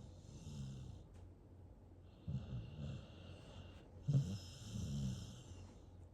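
Staffie-mix puppy snoring in its sleep: about three slow, raspy snoring breaths, the loudest starting sharply about four seconds in.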